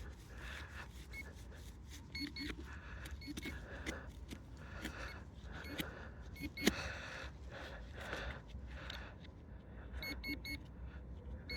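Metal detecting gear beeping in short electronic tones, the beeps coming quick and repeated near the end as the pinpointer closes on a target buried in the sidewall of a hole. Between them comes the scraping of digging in wet soil, with one sharp knock about two-thirds of the way through.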